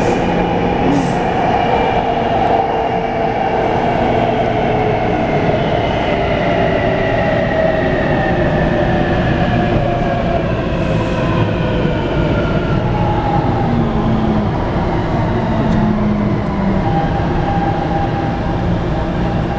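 Taipei Metro C321 refurbished train's VVVF inverter and traction motors whining from inside the car, over a steady rumble of wheels on rail. Several whine tones fall slowly in pitch. The inverter on this train gives an abnormal noise.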